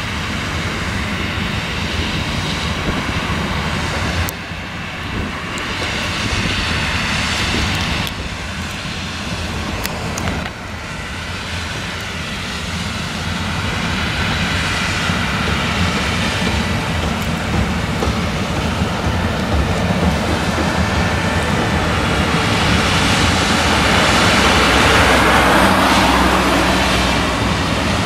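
New Holland CX combine harvester with an eight-row Geringhoff corn header harvesting maize: a steady engine and machinery drone under load, with brief dips, getting louder toward the end as the machine comes closer.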